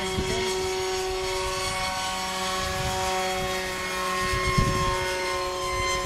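Radio-controlled model airplane flying overhead, its motor and propeller giving a steady whine, with wind buffeting the microphone.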